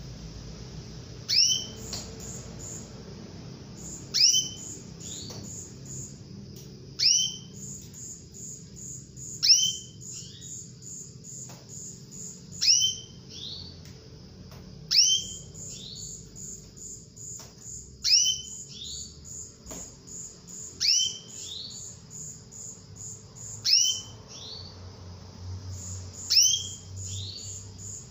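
Female domestic canary repeating its call to a male about every three seconds, ten times. Each call is a sharp downward-sliding high note followed by a shorter second note. A fast series of thin, very high pips runs between the calls.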